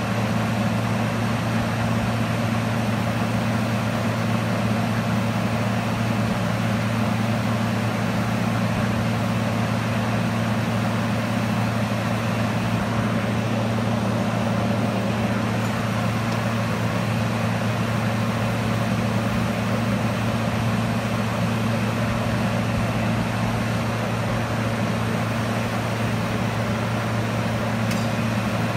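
Steady low electrical hum with fan noise from a 25 kW air-cooled induction heating power source driving a four-position forging inductor as it heats trowel blanks.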